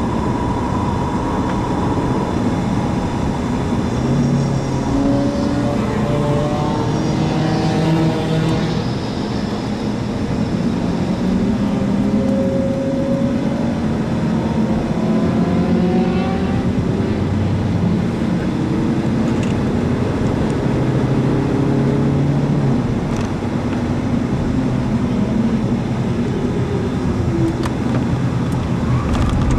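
Audi A4 TDI 170's four-cylinder turbodiesel driven hard, heard from inside the cabin: the engine note climbs and drops repeatedly as the car accelerates and slows through the corners, over steady road and wind noise.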